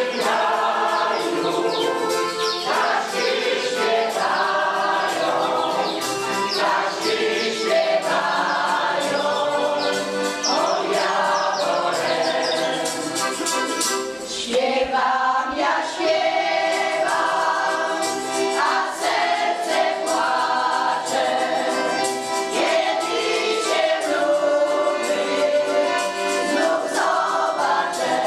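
Polish folk choir of mostly women's voices singing a folk song, accompanied by an accordion.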